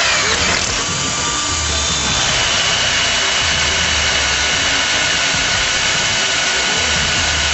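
Power grinder running steadily against a welded aluminium piece, a continuous high whine over a grinding hiss.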